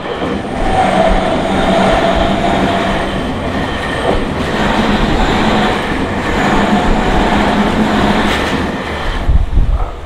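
Tokyu Toyoko Line electric commuter train passing over a level crossing at speed: a loud, steady rumble of wheels on rail with clacking over the joints, the crossing's warning bell ringing underneath. A few heavy knocks near the end as the last wheels cross, then the rumble drops away.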